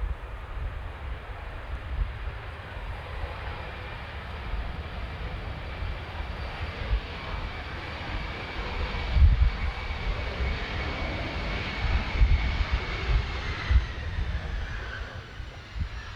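Bombardier Challenger 850's twin General Electric CF34-3B1 turbofan engines running as the jet flies past on approach, with a steady whine over a wide rush that drops in pitch about 13 seconds in as it passes. Wind gusts buffet the microphone.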